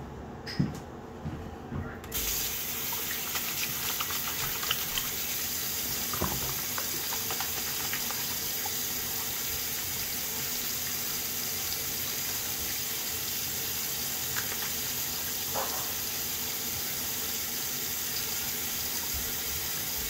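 A bathroom sink tap is turned on about two seconds in, after a few small knocks, and water then runs steadily into the basin while hands are washed under the stream, with occasional small splashes.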